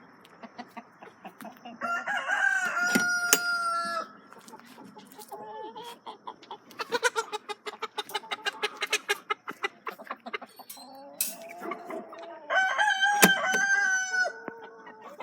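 Rooster crowing twice, each crow a long drawn-out call of about two seconds, with a rapid run of chicken clucks and cackles in between.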